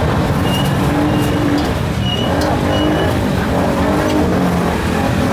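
Motorbike engines running and revving close by, their pitch rising and falling over a steady background of street noise.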